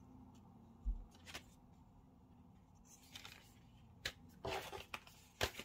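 Cardboard disc packaging being handled. A low knock comes about a second in, then scattered clicks and short rustles of card against card, the loudest near the end.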